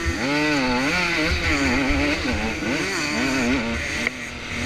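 Motocross dirt bike engine heard from on board, revving hard with its pitch rising and falling repeatedly as the throttle opens and closes through the track. About four seconds in the throttle closes: the sound drops in level and settles to a steadier, lower note.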